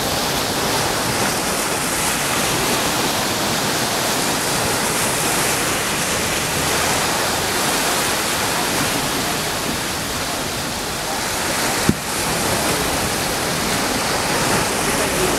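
Sea surf washing in as a steady, even rushing of water. A single sharp click sounds about three-quarters of the way through.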